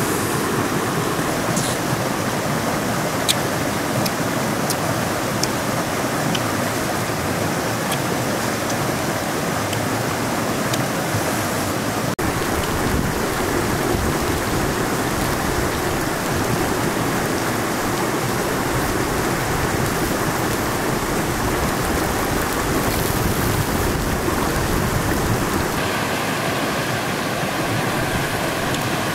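Steady rush of a shallow river flowing over rocks, with a few faint clicks.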